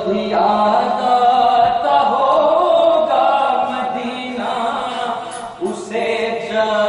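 A man chanting a Shia mourning lament from a book in long, held, wavering phrases, with a short break for breath about five and a half seconds in.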